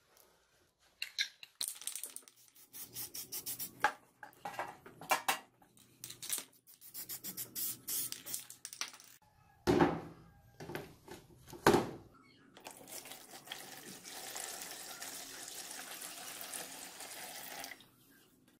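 Liquid poured steadily into a plastic tub for about five seconds, filling an acid etching bath around a steel chopper blade. Before that come two sharp knocks as the blade is set into the tub, and earlier a run of short scuffing bursts.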